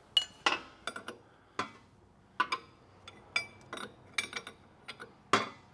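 Wrench clinking against steel hydraulic fittings as each one is checked for tightness: an irregular string of about a dozen sharp metallic clinks, some ringing briefly, the loudest near the end.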